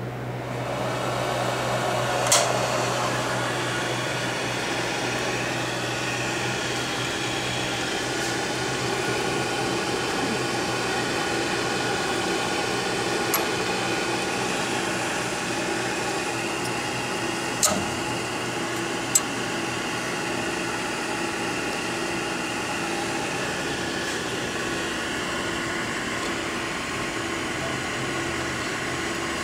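Micro-Vu optical comparator running with a steady fan whir and low hum. The sound gets louder about a second in and then holds, as the profile lamp and its cooling fan come on. A few sharp clicks sound over it.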